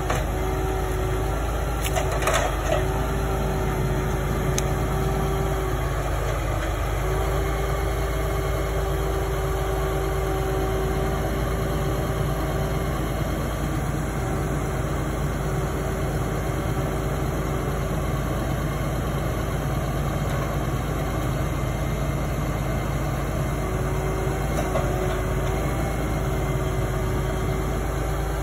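Tractor engine running steadily while it powers the hydraulic crane of a Sedlmayer RW-HS-18 forestry trailer loading logs. A steady whine drops out and comes back several times as the crane moves, with a few sharp knocks about two seconds in.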